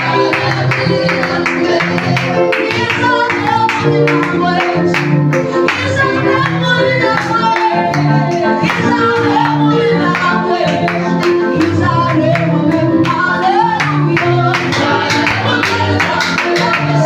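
Praise-and-worship band music with a steady drum beat under held bass notes, with some singing.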